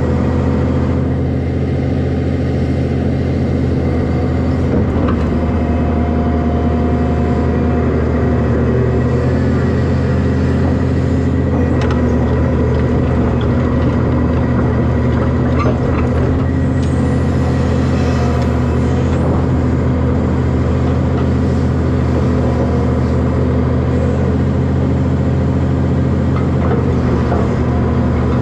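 Hydraulic excavator's diesel engine running steadily, heard up close from the machine itself while it swings and digs. There are a few short knocks from the bucket and rock.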